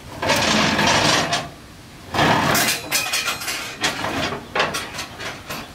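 Household belongings and gear being handled and loaded: a run of knocks and clatters, with two longer stretches of scraping or rustling, one near the start and one about two seconds in.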